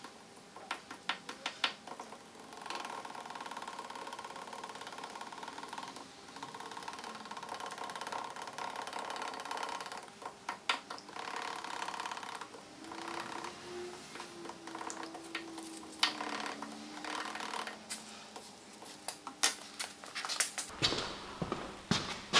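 Paint being stirred with a stick in a plastic mixing cup: a steady, rhythmic scraping, with bursts of sharp taps near the start and again toward the end.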